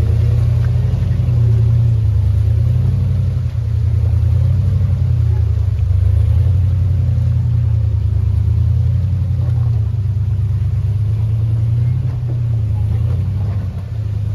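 Old Jeep's engine running at low revs under load, the rumble swelling and easing every couple of seconds as it crawls up a rocky creek-bed waterfall.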